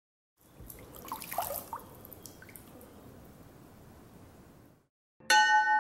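Water dripping and splashing as a rifle scope is lifted out of a bucket of water, with a cluster of quick drips about a second in. Louder music starts near the end.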